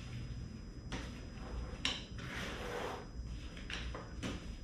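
Helinox Hard Top table being taken apart: the top's corner clips popping off the ends of the pole frame in four sharp clicks, with a rustle between the second and third as the top is worked free.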